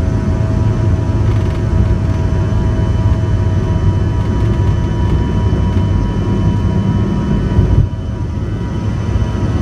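Bombardier CRJ-200's rear-mounted General Electric CF34 turbofans running, heard inside the cabin: a steady low rumble with a few steady whining tones on top. The sound drops a little, suddenly, about eight seconds in.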